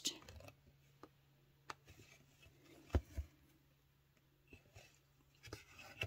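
Quiet hand-stitching sounds of cross-stitch: a needle pushed through 11-count stamped fabric and floss drawn through, heard as a handful of faint sharp taps and scratchy rustles over a low steady hum.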